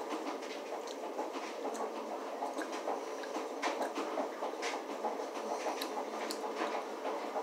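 Someone chewing candy close to the microphone: small irregular crunching clicks over a steady background hiss.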